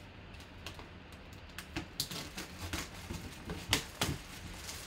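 Plastic shrink-wrap being torn and peeled off a cardboard box, crinkling and crackling in quick irregular snaps that grow busier and louder from about two seconds in, with two sharper snaps late on.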